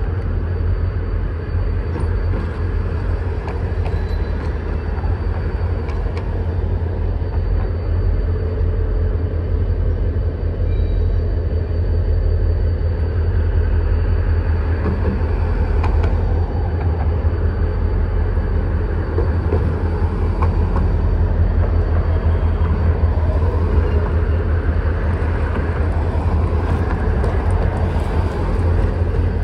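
Diesel freight locomotive running with a steady low rumble as it moves slowly forward, growing a little louder as it comes closer.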